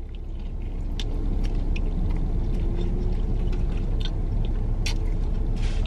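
A person chewing a big bite of burger, with a few short wet mouth clicks, over a steady low rumble inside the car.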